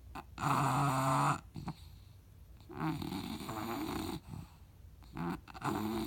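Snoring: three long, loud snores about two and a half seconds apart, each carrying a wavering pitched rattle, with a short snort just before the last.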